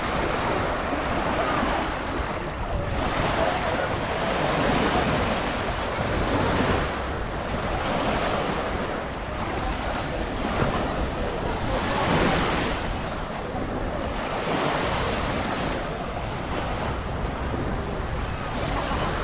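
Sea waves washing onto a sandy beach, a steady rush that swells and fades every second or two, with wind buffeting the microphone.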